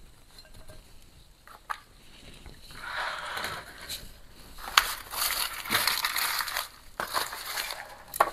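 Chunky aroid potting mix of orchid bark and compost crunching and rustling as it is handled and backfilled into a pot. The sound is faint at first and heavier from about three seconds in, with a few sharp clicks.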